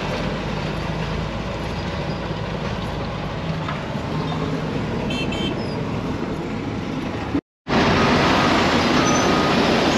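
Dump truck's diesel engine running, heard from inside the cab as it rolls slowly. After a cut it comes in louder from beside the truck while the bed is raised to unload, with a couple of backup-alarm beeps near the end.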